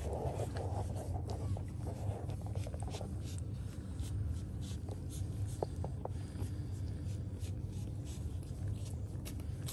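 Newborn French bulldog puppies nursing, with rapid wet suckling clicks and smacks and a few short squeaks around the middle, over a steady low hum.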